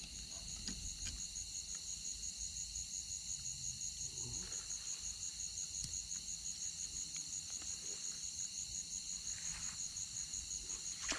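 Insects trilling steadily: a high, even chorus that pulses several times a second.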